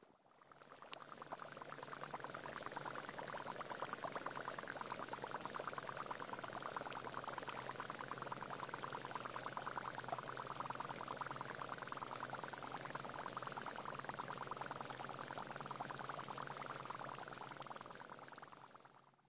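Air bubbles fizzing and popping as they escape from dry river-bed sand flooded by advancing water: a dense, steady crackle of many tiny pops. It fades in at the start and out near the end.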